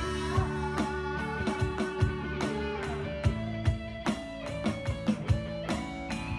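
A band playing: held electric guitar chords over a steady beat played on an electronic drum kit.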